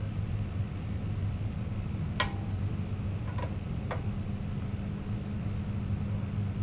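Small single-cylinder pit bike engine idling steadily, with three sharp metallic clicks about two, three and a half and four seconds in as the carburettor area is worked on by hand.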